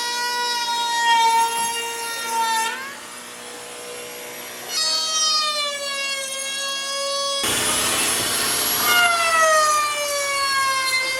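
Electric woodworking power tool whining, its pitch sagging slowly as it is loaded, easing off for a moment and then coming back, with a loud burst of rushing cutting noise about two-thirds of the way through.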